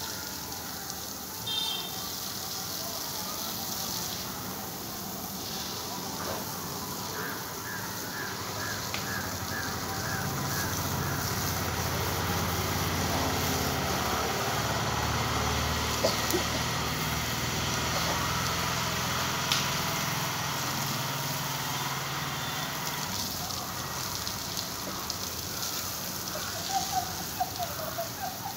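Water hissing and splattering steadily on an elephant and a wet concrete floor as the elephant is bathed. A low engine-like hum swells through the middle and fades, and a quick run of short chirps comes about a third of the way in.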